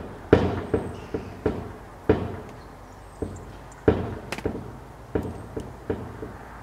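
Repeated irregular banging and knocking, over a dozen sharp knocks at roughly two a second, each dying away quickly: a farm gate or door banging.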